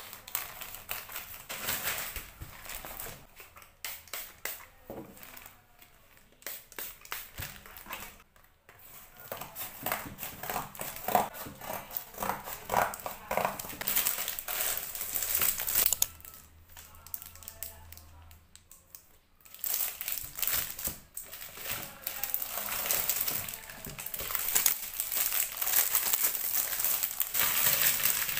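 Plastic mailer and packaging crinkling and rustling as a parcel is cut open and unwrapped: courier pouch, taped cardboard and the plastic wrap around a pack of sticker paper. The crackling is dense and irregular, with a quieter stretch a little past halfway.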